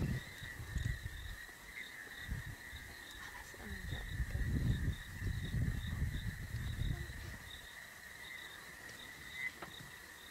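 Insects trilling in a steady, high, pulsing chorus, with a low rumble swelling for a few seconds in the middle.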